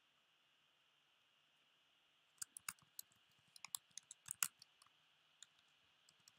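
Typing on a computer keyboard: a quick, irregular run of about a dozen keystrokes starting about two and a half seconds in, then a few scattered clicks, over near silence.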